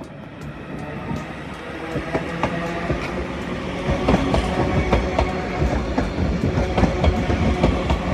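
Class 331 electric multiple unit pulling out of the platform, growing steadily louder as it gets under way, with the wheels clicking over rail joints and a steady tone running through the rumble.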